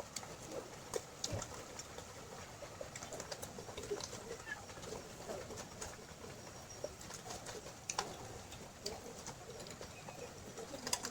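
Eating sounds: irregular wet clicks and smacks of chewing, with a few sharper ones here and there.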